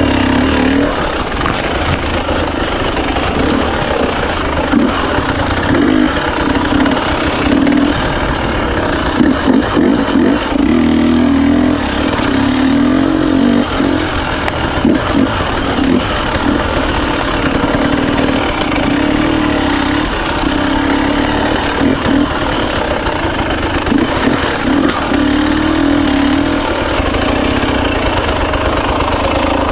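Two-stroke enduro motorcycle engine, a Husqvarna TE300i, running with a note that rises, dips and breaks up as the throttle is worked, with a few short knocks in the middle.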